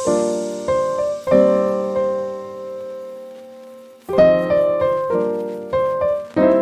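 Background piano music: soft chords are struck and left to ring out, with a long fade in the middle before new chords come in about four seconds in.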